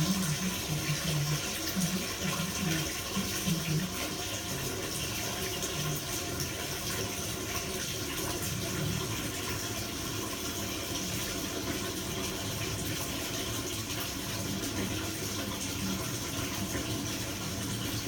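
Warm tap water running in a steady stream.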